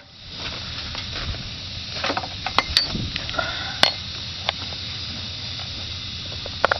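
Steady hiss of steam from a 7¼-inch gauge model of a Hunslet 0-4-0 steam locomotive, with a few sharp metallic clinks and knocks scattered through it, a couple close together near the middle and another near the end.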